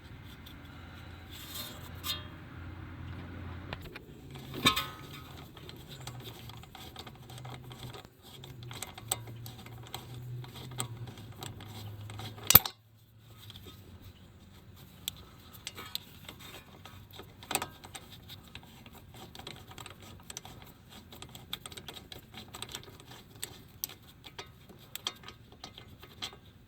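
Hand ratchet clicking and metal tools clinking while a Torx caliper bracket bolt is worked loose, with one sharp loud clank about halfway through. A low steady hum runs under the first half and stops around the clank.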